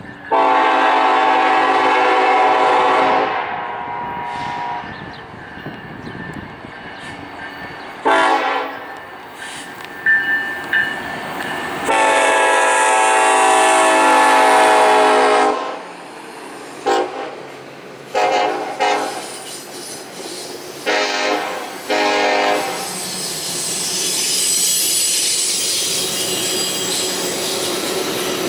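A diesel locomotive's multi-note air horn, on an EMD SD70ACe, sounds a grade-crossing warning in long and short blasts: a long blast at the start, a short one, another long blast, then several short toots. Near the end the horn stops and the rumble and wheel noise of the passing passenger cars rises.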